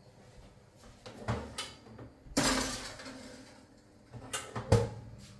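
A countertop electric oven being loaded: clunks and a scraping noise as a foil-covered metal baking tray goes onto its rack through the open drop-down door, then a sharp knock near the end, most likely the door shutting.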